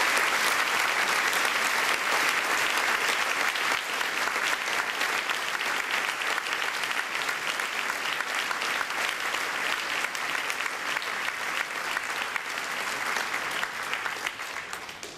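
Audience applauding, a dense clatter of many hands clapping that slowly tapers off and dies away near the end.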